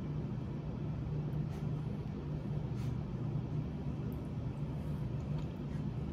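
Steady low background hum, with a few faint clicks of a fork in a plastic sauce cup and quiet chewing as a dumpling dipped in spicy mayo is eaten.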